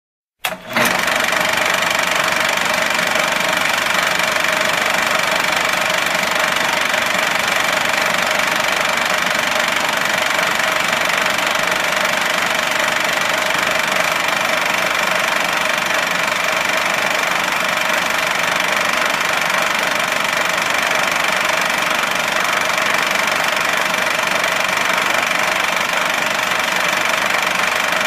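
Projector mechanism running with a continuous rattling clatter and a steady whine, starting about half a second in.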